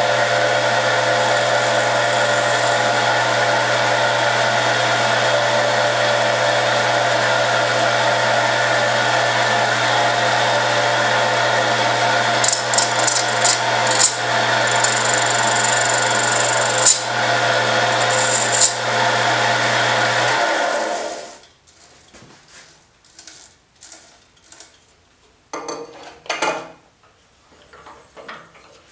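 Wood lathe motor running steadily while a carbide turning tool scrapes the spinning acrylic throat plate. A few sharp ticks and scratchy cuts come between about 12 and 19 seconds in. The lathe is switched off about 20 seconds in and winds down, followed by light handling knocks.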